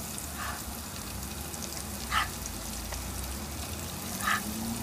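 Battered chicken wings frying in a small deep fryer, a steady sizzle of hot oil, broken three times by short sharp sounds about two seconds apart, the last two the loudest.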